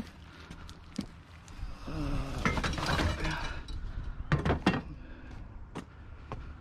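Hard metal objects clinking, knocking and rattling as they are rummaged through and pulled from a tangled pile of junk, with a cluster of louder knocks a little past the middle.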